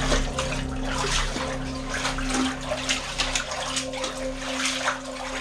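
Feet wading through shallow water on a flooded mine tunnel floor, with irregular splashing and sloshing throughout, over a steady low hum.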